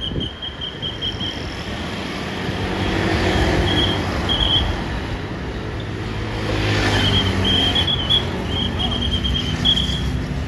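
Road traffic with a large vehicle passing, its engine and tyre noise swelling to a peak about two-thirds of the way in and then easing. A rapid, high-pitched pulsed chirping sounds near the start, briefly in the middle, and again through the later part.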